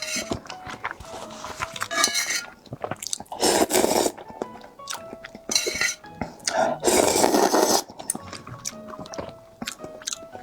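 Close-up eating sounds: several loud crunchy bites with chewing between them and light clinks of dishes or utensils, over soft background music.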